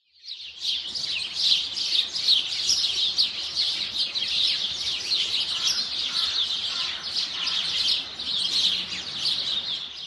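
Many small songbirds chirping and twittering at once, a dense, continuous chorus of quick high chirps that fades in over the first half second.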